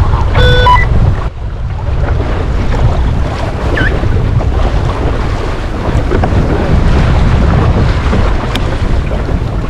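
Strong wind buffeting the microphone over the wash of the sea as a small open sailing dinghy sails in a fresh blow. A brief pitched tone sounds about half a second in.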